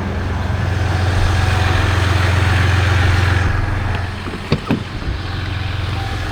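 Boat motor running steadily with a low hum, easing off about three and a half seconds in, followed by two sharp knocks.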